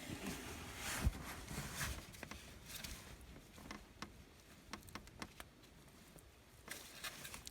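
Faint scattered clicks and light scrapes of hands and tools handling a loosened oil pressure switch in a car's engine bay.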